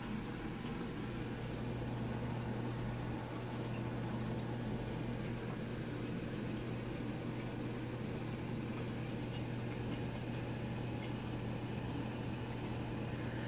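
Steady electrical hum of a reef aquarium's pumps running: one low constant tone over a faint even hiss.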